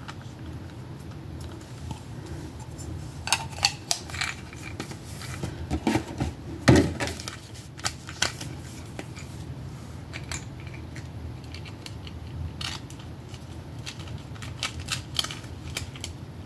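Scattered clicks and light rattles of small hard parts being handled: a clear plastic case and the small pieces of an electric nail drill kit. They come in two clusters, the loudest click about seven seconds in, over a steady low hum.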